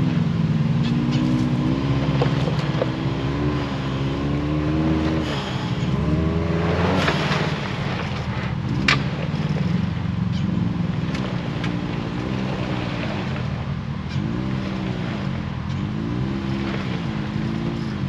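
Side-by-side UTV engine revving under load as it climbs a rutted trail, the throttle rising and falling. In the second half it blips in quick swells about once a second. There is a single sharp click midway.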